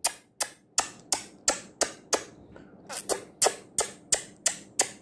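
A person making a steady run of sharp clicking sounds to call a cat, a little under three clicks a second, with a brief pause midway.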